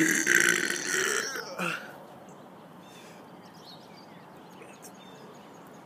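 A loud, rough, deliberate burp lasting about a second and a half, with a short extra gulp near its end, then room tone.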